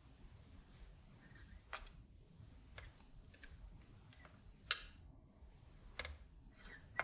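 Hand soldering on a circuit board: scattered small clicks and taps as the soldering iron and solder wire work the joints, with one sharp click a little before five seconds in. Two brief faint hisses, around a second in and near the end.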